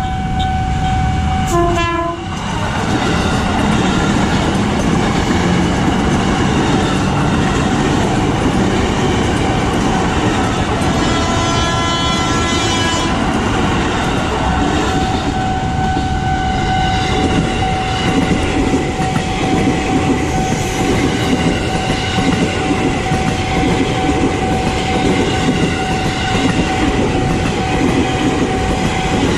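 KRL Commuterline electric trains (ex-JR 205 series) at level crossings: two short horn blasts in the first two seconds, another horn about eleven seconds in, and the steady rumble and clatter of the cars passing close by. A steady single tone sounds through the second half.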